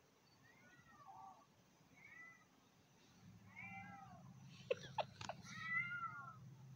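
Cat meowing: four short meows, each rising and falling in pitch, about a second apart. A couple of sharp clicks, the loudest sounds, come just past the middle, and a low steady hum sets in about halfway.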